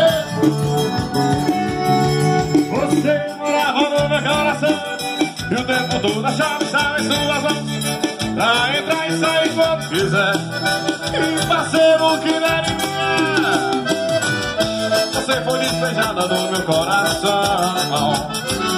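Live band music led by an accordion, with electric guitar and a steady rhythm, played loud through a PA sound system.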